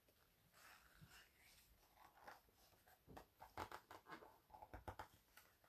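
Paper pages of a picture book being handled and pulled apart where they seem stuck together: faint rustling at first, then a run of crisp crackles and clicks from about three seconds in.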